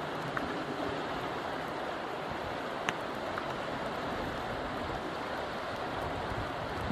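Steady rush of flowing river water, with one short click about three seconds in.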